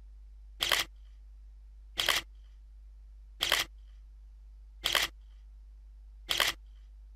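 Camera shutter firing five times at an even pace, about one shot every second and a half, each a quick double click, over a faint low hum.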